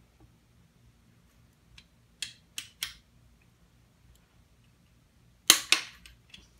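Click-type torque wrench on a connecting-rod cap bolt: three light ratchet clicks about two seconds in, then a sharp, louder click about five and a half seconds in as the wrench breaks over at its set torque, the bolt reaching spec.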